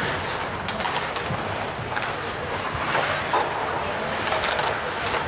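Ice hockey play: skates scraping on the ice, a few sharp clicks of sticks and puck, and faint distant shouts.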